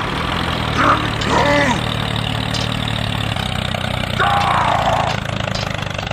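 A tractor engine running steadily, with short vocal exclamations about a second in and again around four seconds in.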